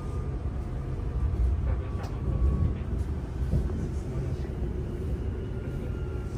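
Interior rumble of a Francilien (Z 50000) commuter train on the move, heard from inside the passenger car: a steady low rumble with faint thin whines and a few light clicks.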